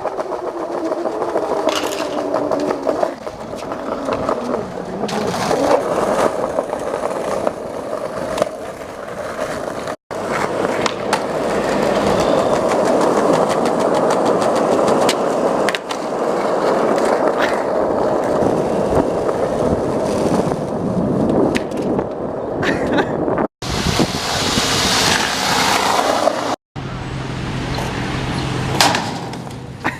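Skateboard wheels rolling over rough pavement, with occasional sharp clacks of the board. The sound breaks off suddenly three times where separate clips are joined.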